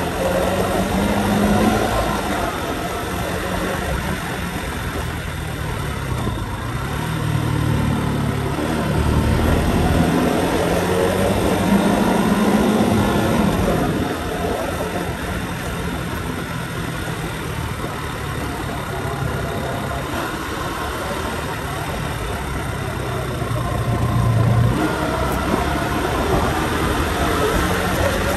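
Motorcycle engine running as it is ridden, its pitch rising and falling with the throttle and speed through the bends, over a steady rush of wind on the microphone.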